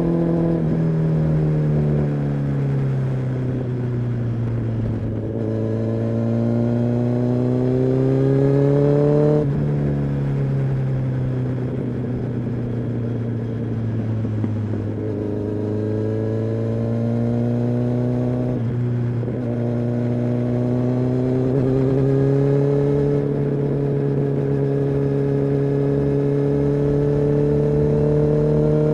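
Kawasaki ZX-10R inline-four sport bike engine and exhaust under way, its pitch easing down at first and then climbing for several seconds before dropping sharply about a third of the way in. It eases off, climbs twice more with brief breaks, then holds a steady pitch near the end.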